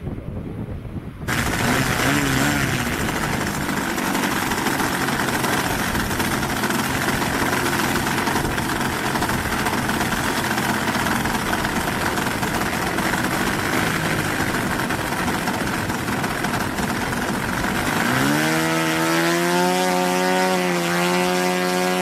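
RC model airplane engine and propeller running, loud and noisy, coming in abruptly about a second in. In the last few seconds a clear, steady engine note rises briefly in pitch and then holds.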